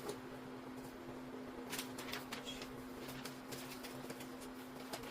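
Faint rustling and scattered light clicks of things being handled, over a steady low hum.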